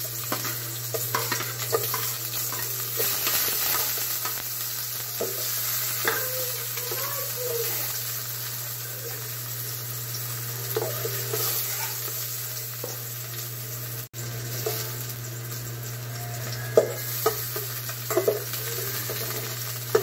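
Garlic and onion sizzling in hot oil in an aluminium pot while a metal spoon stirs and scrapes, with scattered clinks of the spoon against the pot, more of them near the end. A steady low hum runs underneath, and the sound cuts out for an instant about fourteen seconds in.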